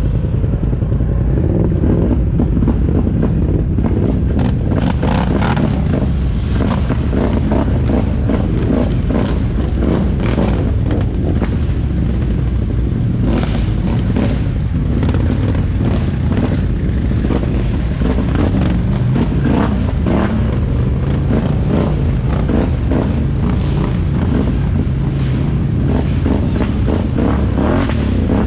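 Can-Am ATV engine running while being ridden, with frequent clattering and knocks throughout.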